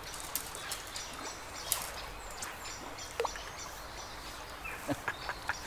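Gentle river flow as a steady hiss, with scattered short bird chirps and a few small clicks.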